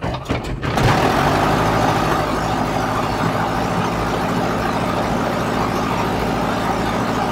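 A 180-horsepower piston aircraft engine is cranked by its starter for under a second, then catches about a second in and keeps running steadily with the propeller turning. It fires right up after its magnetos were reinstalled and the spark plug wires re-timed.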